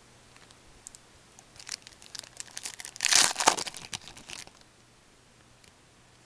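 Plastic foil wrapper of a 2007-08 Fleer Ultra hockey card pack being torn open and crinkled. Scattered crackles build into one loud burst of tearing about three seconds in, then stop about a second and a half later.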